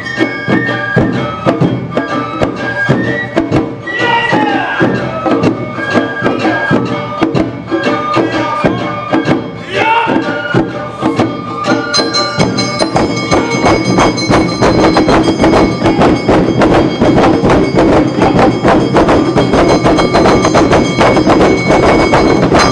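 Awa Odori festival band (narimono) playing: shinobue bamboo flutes carry a high melody over rapid drum and percussion strokes. Voices call out briefly about 4 and 10 seconds in. From about halfway the percussion becomes denser and louder, and the music stops right at the end.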